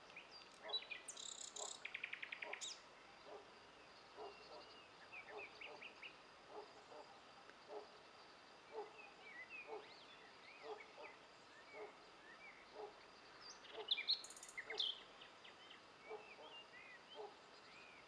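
Countryside birds singing. The loudest parts are a high, fast trilling song about a second in and another high burst of song near fourteen seconds, with scattered chirps in between and a low short call repeated steadily, a little more than once a second.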